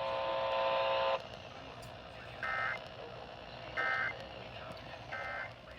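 Weather radio broadcast ending: a steady buzzing tone stops about a second in, then three short, evenly spaced bursts of warbling data tones (the Emergency Alert System end-of-message codes) over faint radio hiss.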